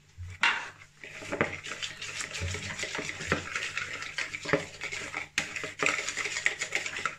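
Wire whisk beating a thin flour-and-water batter in a mixing bowl: a fast, uneven clatter of the whisk wires against the bowl, starting about half a second in and stopping abruptly near the end.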